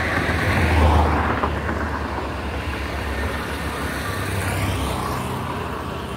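Road traffic: a motor vehicle passing close by, its low rumble and tyre hiss swelling about a second in and then slowly fading.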